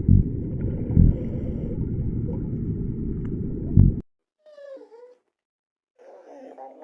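A loud, low rumbling noise with three heavier thumps for about four seconds, cutting off suddenly; then, after a short gap, two brief animal calls whose pitch falls and wavers.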